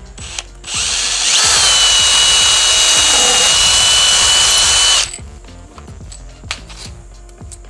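Cordless drill boring a small pilot hole through an MDF board: the motor starts about a second in, its whine rises and then holds at a steady pitch for about four seconds, and it stops suddenly, followed by a few small knocks.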